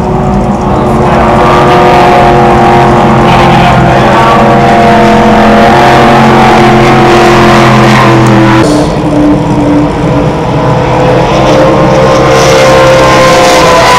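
Ski race boats' engines running flat out as two boats pass one after the other, loud and steady. The engine note drops suddenly about two-thirds of the way through as the first boat goes by.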